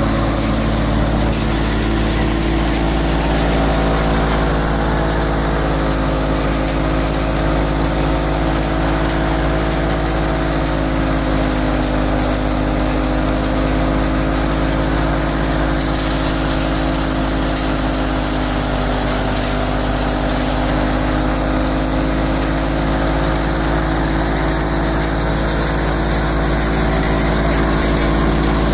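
Fiat 640 tractor's diesel engine running steadily, its pitch sagging slightly through the middle and then recovering.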